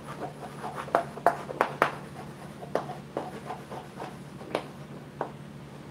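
Chalk writing on a blackboard: a run of short, irregular taps and scratches as each letter is written, stopping near the end.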